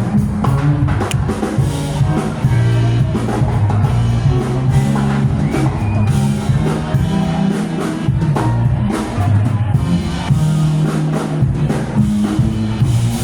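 Live band playing loudly: a drum kit keeping the beat over a moving bass line, with guitar and other instruments on top.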